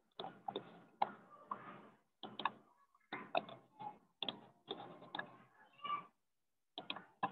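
Computer mouse clicking and ticking in short rapid bursts, a dozen or so clusters, as edges are picked and the view is moved in the CAD program.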